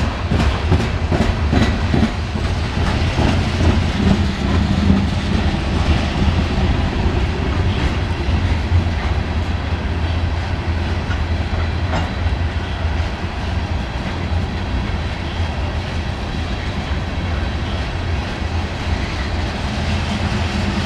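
Loaded coal hopper cars of a freight train rolling past: a steady low rumble with wheels clicking over rail joints, the clicks most frequent in the first few seconds.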